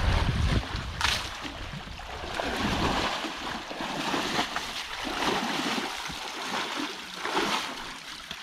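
Water splashing and sloshing in swells that come and go every second or two, with wind buffeting the microphone in the first second.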